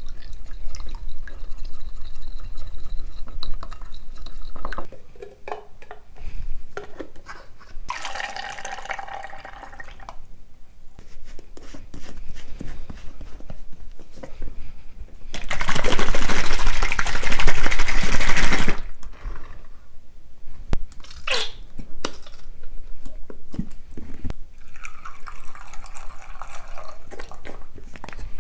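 Oil and seasonings stirred by hand in a glass bowl, with wet sloshing and small clicks. Then comes a series of noisy bursts as sauce bottles are handled and squeezed; the loudest lasts about three seconds, midway through.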